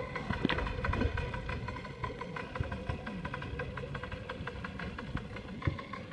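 Muffled noise from a camera held under the water: a steady low rumble with a faint hum and many small, rapid clicks and taps.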